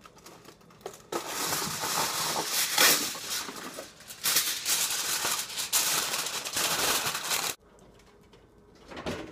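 A sheet of aluminium foil crinkling as it is handled and pressed down over a roasting pan. It goes for about six seconds, then stops suddenly.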